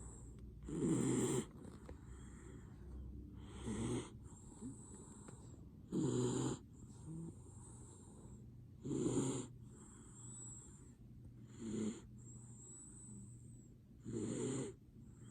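Miniature dachshund snoring in its sleep: six short snores, one roughly every two and a half to three seconds, with a faint high whistle on the breath between them.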